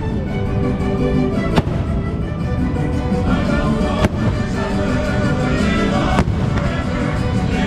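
Aerial firework shells bursting in the sky, three sharp bangs roughly two seconds apart, over loud, steady show music with sustained tones.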